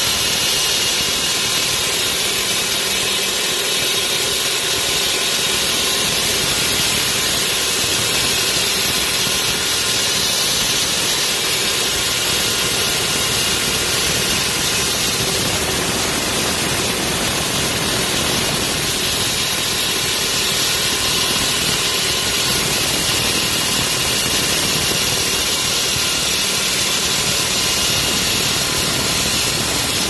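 Corded electric concrete saw running at full speed with its large circular blade cutting into a concrete slab: a steady, even grinding whine with a strong hiss.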